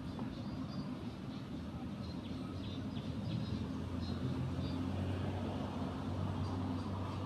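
A steady low engine hum, getting a little louder about four seconds in.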